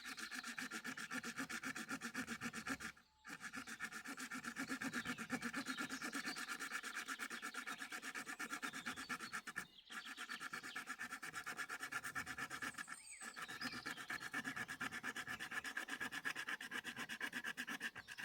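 Saw blade of a Mikov pocket knife cutting through a resinous branch in quick, even back-and-forth strokes, stopping briefly three times.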